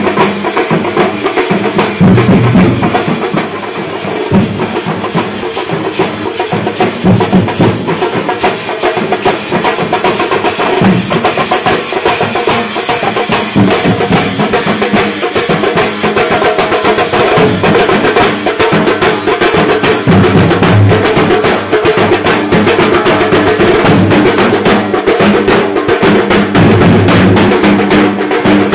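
A band of drummers beating many large steel-shelled drums with sticks in a loud, fast, continuous rhythm.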